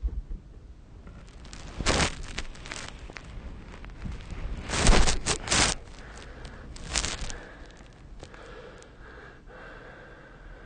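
A sleeping person breathing noisily and snorting: a loud breath about two seconds in, a quick cluster of three snorts about five seconds in, another loud breath around seven seconds, then quieter breathing.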